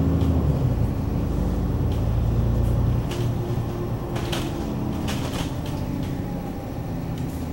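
Bus engine and road rumble heard from inside the cabin, a steady low drone whose note drops and eases about three seconds in. Several short rattles or clicks come in the middle.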